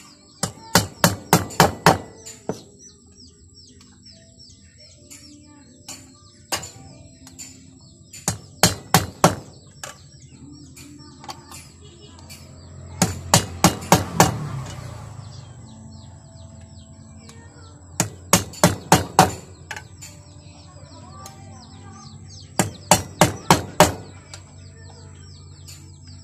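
Hammer striking a nail in five quick bursts of about five blows each, punching holes to make a homemade cheese grater.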